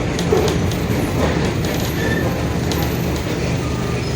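Mercedes-Benz OF-1721 Bluetec 5 bus running along with a steady low drone from the engine and drivetrain, the differential growling, with light clicks and rattles over it.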